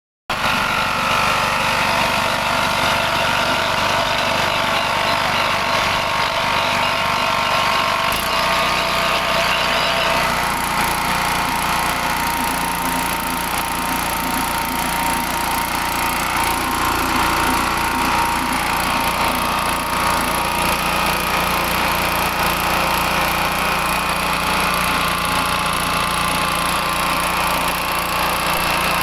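Vertical pellet mill running with a steady mechanical drone. Its low hum shifts about eight seconds in, and the higher part of the sound changes again a couple of seconds later.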